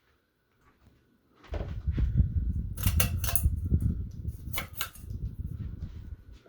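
Loud rumbling and rubbing on the microphone with sharp clicks and crackles, starting about a second and a half in and stopping just before the end, over a faint steady tone.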